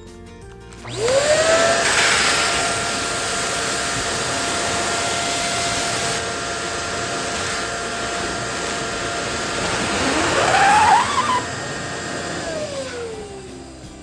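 Electric balloon pump starting up with a rising whine and blowing air steadily as it inflates a balloon, then winding down with a falling whine near the end. Squeaky, rising sounds come in over it about ten seconds in as the balloon stretches.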